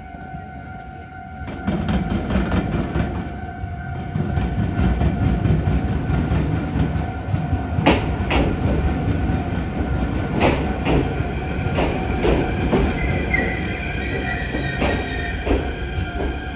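Iyotetsu 7000 series electric train pulling into a station: a rumble builds about a second and a half in, with repeated sharp clacks of the wheels on the track, and a brief wavering wheel squeal near the end as it slows. A steady high tone runs underneath.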